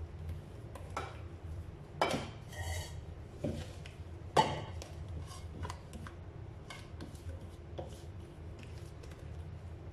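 A spatula scraping and stirring thick cake batter in a plastic mixing bowl, with irregular small clicks and scrapes against the bowl's sides and two sharper knocks, about two seconds and four and a half seconds in.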